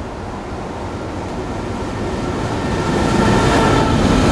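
DF11 diesel-electric locomotive running through the station without stopping. Its rumble grows louder as it approaches and peaks as the engine car passes close by, about three seconds in, with a faint steady whine above the rumble.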